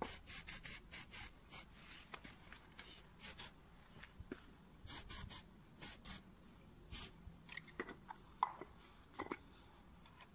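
Aerosol spray-paint can hissing in many short bursts, one quick press of the nozzle after another. The bursts stop about two-thirds of the way through, and a few faint knocks of handling follow.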